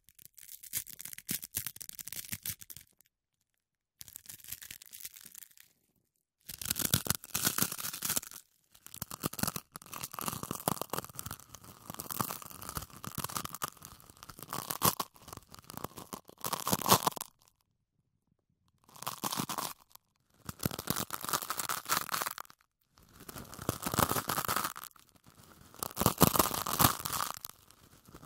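Hands rubbing and wiping on trouser fabric in a series of brisk bouts. Each bout is a quick run of cloth-scrubbing strokes, and short pauses fall between them.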